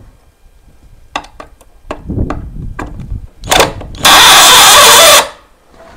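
A few clicks and knocks, then a power drill runs in one loud burst of about a second, backing out a screw.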